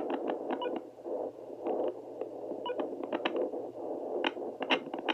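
A handheld fetal Doppler's speaker gives a rushing static, broken by irregular scratchy crackles as the probe slides over gel on the belly while searching for a heartbeat.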